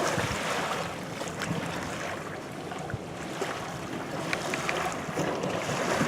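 Wind buffeting the microphone over small waves lapping and splashing, with a few faint ticks of water.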